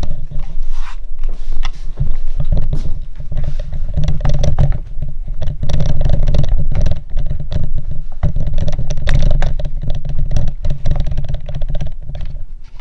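Handling noise as the camera is fitted back into its clamp on a tripod stand: loud rubbing rumble broken by many clicks and knocks.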